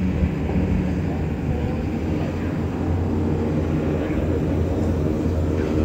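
Jet airliner taking off: the CFM LEAP-1B engines of a Boeing 737-8 MAX at takeoff thrust, a steady low rumble as it climbs out.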